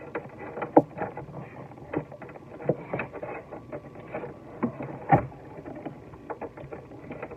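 Irregular clicks and knocks of a wrench and metal fittings being handled in the cramped cabinet under a bathroom sink while a faucet supply line nut is tightened, the sharpest knocks about a second in and about five seconds in.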